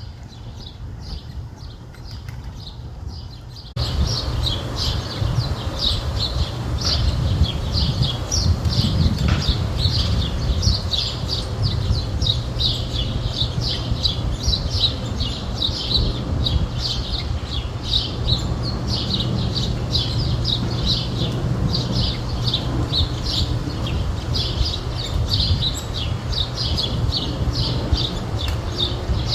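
Bird calling: short, high chirps repeated about twice a second, over a steady low rumble. The calls start, and the sound gets louder, about four seconds in.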